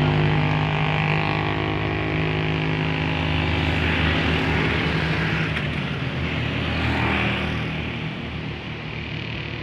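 Diesel bus engine pulling up a climb, a steady low drone with a hiss of exhaust and road noise. It settles to a lower pitch about four seconds in, then fades as the bus moves away near the end.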